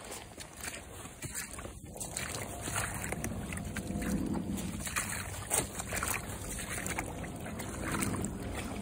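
Footsteps of rubber boots wading through mud and shallow water, sloshing and squelching at a walking pace. They get louder about two seconds in, as the boots reach the water.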